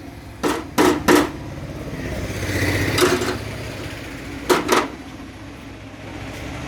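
A tractor's diesel engine idling steadily, with about six sharp knocks over it: three in quick succession in the first seconds, a longer one about three seconds in, and two close together past the four-and-a-half-second mark.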